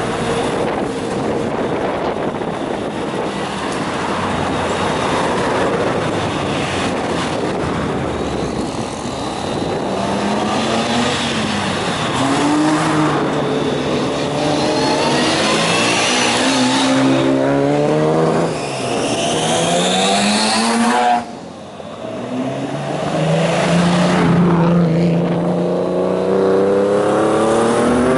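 Several classic cars' engines revving as they pull away one after another, each rising in pitch as it accelerates. The sound drops off suddenly a little past two-thirds of the way, then another engine builds up.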